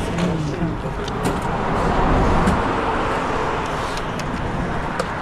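A road vehicle going past, its noise rising to a peak about two seconds in and then fading.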